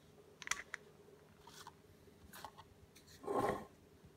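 Faint clicks, scrapes and rattles of small tools and odds and ends being rummaged through in a kitchen junk drawer while someone hunts for a screwdriver, with a brief louder rustle about three seconds in.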